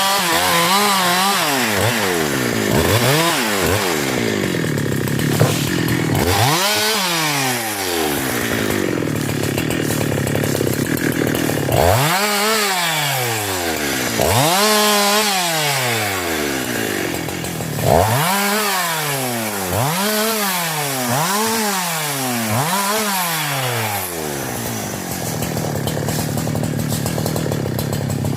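A 372 chainsaw's two-stroke engine being revved up and let back down over and over, its pitch rising and falling about ten times.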